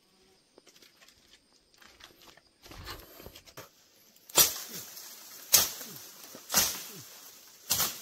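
Four sharp chopping blows about a second apart, a hand tool striking wood or bamboo, beginning about halfway in. A short stretch of rustling comes before them.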